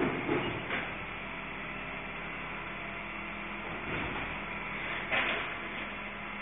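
Refuse collection truck at work, its engine running with a steady hum, with short clanks and bangs from its collection gear at the start, a little under a second in, and again around four and five seconds in.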